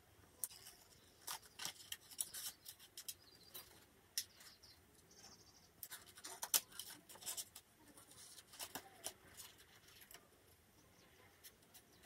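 Quiet snips of hand scissors cutting through paper, coming in irregular runs of short cuts with brief pauses between them.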